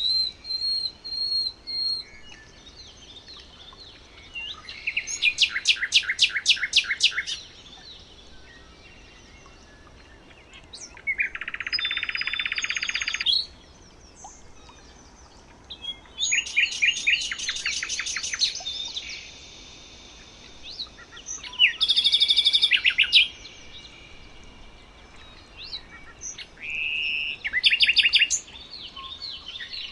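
Songbirds singing, several different songs in turn: fast rattling trills, a buzzy phrase and high whistled notes, each a second or two long, with short gaps between.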